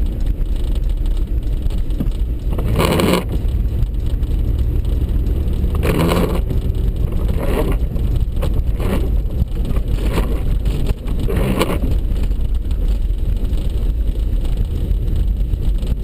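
Steady low rumble of a four-wheel-drive vehicle driving on a snow-covered road, heard from inside the cabin. A few windshield wiper strokes sweep across the glass, the loudest about 3 and 6 seconds in, then fainter ones.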